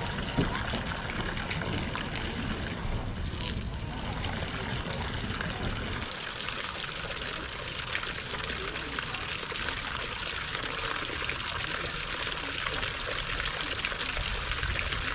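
Steady stream of water falling from a hose spray into a plastic stock tank full of water, pattering and splashing on the surface. A brief louder sound comes about half a second in.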